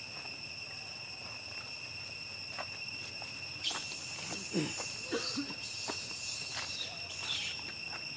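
Steady high-pitched drone of insects (cicadas or crickets) with a few bursts of rustling near the middle and several short sliding calls about halfway through.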